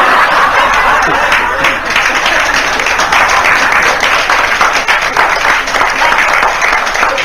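Live audience applauding a joke's punchline: dense, steady clapping.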